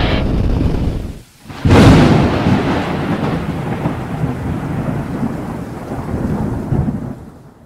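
Background music cuts off about a second in. Then a thunderclap sound effect plays for the logo's lightning bolt: a sudden loud crack followed by a long rolling rumble that fades away near the end.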